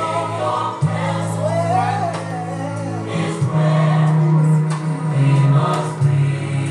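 Gospel worship song: a choir singing over sustained low chords that change every few seconds.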